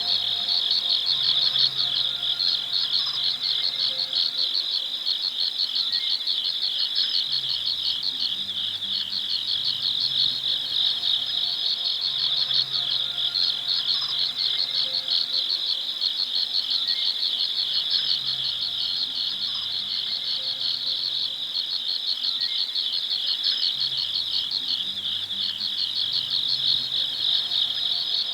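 Night ambience of crickets chirping in a dense, steady, rapidly pulsing high chorus. A faint low hum sits underneath.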